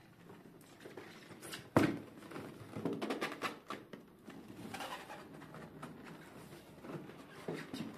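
Large cardboard toy box being handled and turned on a wooden tabletop: one sharp thump a little under two seconds in as it knocks against the table, then rubbing and scraping of cardboard.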